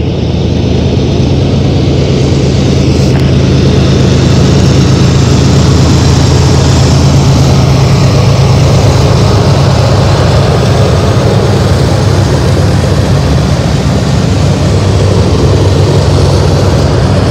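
BNSF diesel-electric freight locomotives passing close by: a loud, steady low engine drone over the rush of steel wheels rolling on the rails. It builds over the first few seconds as the units come alongside, then holds.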